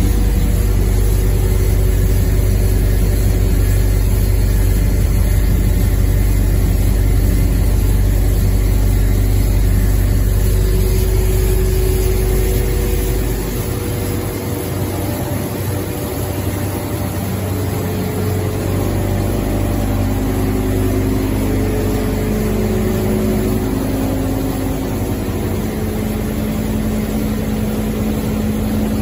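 QD-600SA copper wire granulator (cable recycling machine) running steadily, its motors, crusher and separator making a loud continuous drone with a deep hum. The deepest part of the hum drops away about halfway through.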